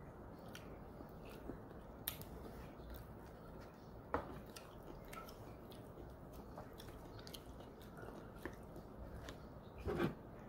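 Close-up sounds of someone eating sushi: soft chewing with scattered small clicks of wooden chopsticks. There are sharper knocks about two and four seconds in, and a louder handling clatter near the end.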